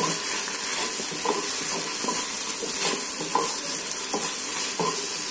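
Chopped cabbage, garlic and green chillies with sauces sizzling in a non-stick frying pan while a wooden spatula stirs them, scraping and knocking against the pan about once a second over a steady frying hiss.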